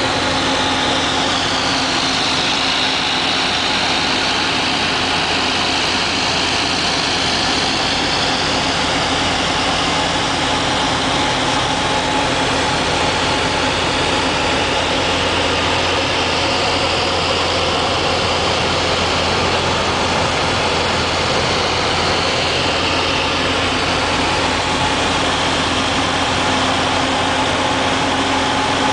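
Light single-engine propeller plane running steadily in level flight, heard inside the cockpit: an even engine and propeller hum with a few constant tones, under loud rushing airflow.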